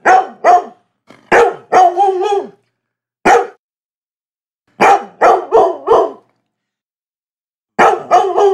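Labrador barking in quick runs of two to four barks, one run ending in a longer, drawn-out bark, with pauses of about one to one and a half seconds between runs.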